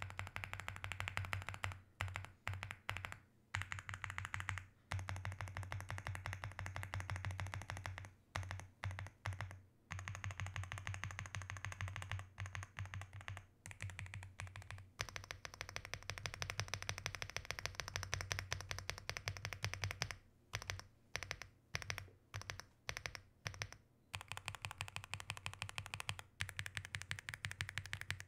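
Aula F75 mechanical keyboard being typed on fast: dense runs of key clacks, thinning to scattered keystrokes for a second or two a few times.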